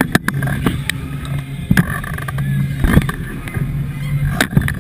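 Mondial Shake flat ride running: a steady low machine hum that fades in and out, with several sharp knocks and rattles as the spinning car is thrown about.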